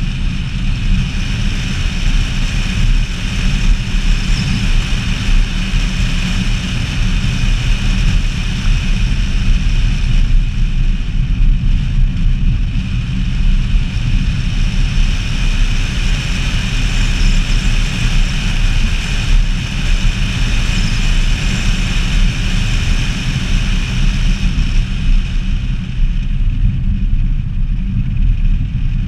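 Peugeot 106 driving at a steady pace, heard from a camera fixed to the outside of the car: a steady rumble of wind on the microphone over the engine and tyre noise.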